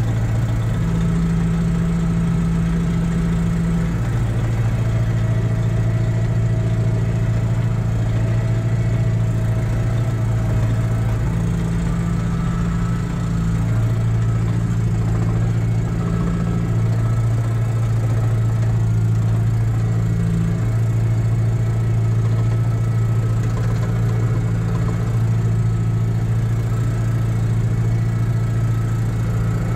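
Tractor engine running steadily under load while pulling a PTO-driven manure spreader, heard from inside the cab as a continuous low hum.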